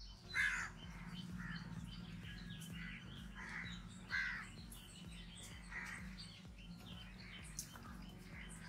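Crows cawing repeatedly, about half a dozen calls, the loudest near the start and about four seconds in. Small birds chirp faintly, over a steady low hum.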